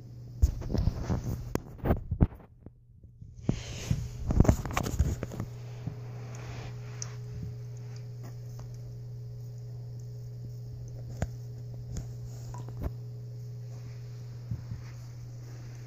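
PetSafe Drinkwell Platinum pet water fountain running: its pump hums steadily under a light hiss of the falling water stream. A cluster of loud knocks and rustles fills the first five seconds, then only a few single clicks.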